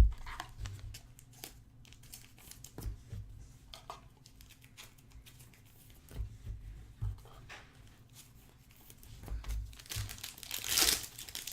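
Plastic trading-card pack wrapping crinkling and tearing, with light clicks and rustles of card handling; the loudest crinkle comes about ten seconds in.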